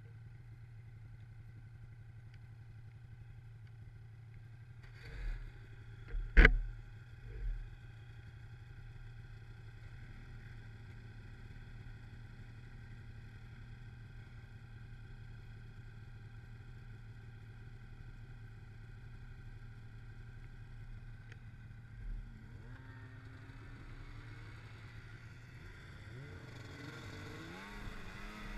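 Snowmobile engine idling steadily, with a few knocks about five to seven seconds in, one of them sharp and loud. Near the end the engine revs up, its pitch rising as the sled pulls away.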